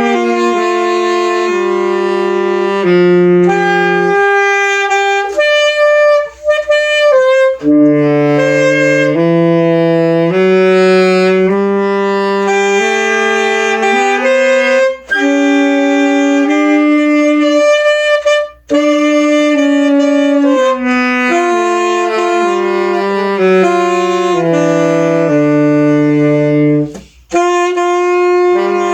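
Saxophone played solo, a slow melody of held notes with short breaks for breath.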